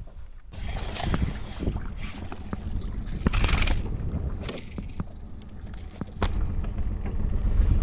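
Irregular knocks and scrapes with swishing noise, over a low wind rumble on the microphone.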